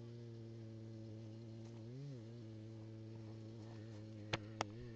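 A steady, low buzzing hum that dips briefly in pitch about two seconds in, with two sharp clicks close together near the end.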